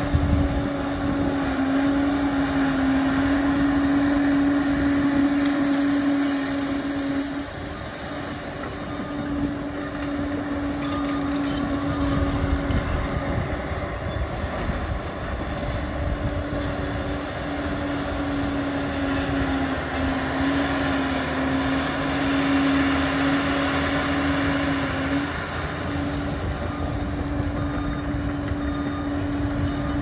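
Liebherr PR 746 crawler bulldozer working, its diesel engine running steadily under a single steady whine that drops out briefly a few times.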